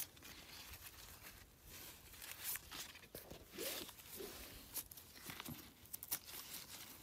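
Faint rustling and crackling of young corn leaves being handled, with scattered soft clicks.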